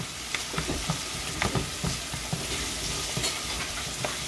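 Onions, peppers and herbs sizzling in oil in a frying pan while being stirred, with a utensil scraping and knocking against the pan many times.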